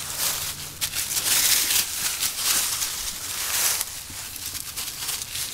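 Dry fallen oak leaves rustling and crunching as Malinois puppies scramble through them after a ball, in uneven crackling bursts.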